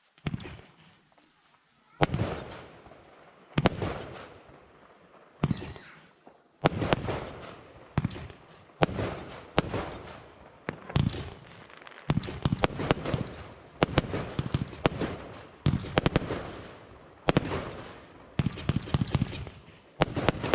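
Blackboxx Fireworks 'Lady Killer' firework battery firing: single sharp bangs every second or two, each trailing off, growing denser and coming in clusters toward the end.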